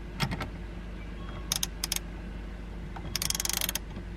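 Ratchet wrench clicking: a few separate clicks, then a quick run of rapid clicks about three seconds in, as a nut on the steering hub is worked.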